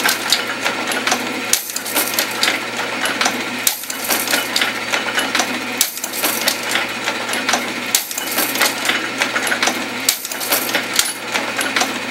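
Monotype Supercaster typecasting machine running and casting large capital A's one at a time: a steady, loud mechanical clatter of clicks and knocks, cycling with a brief lull about every two seconds.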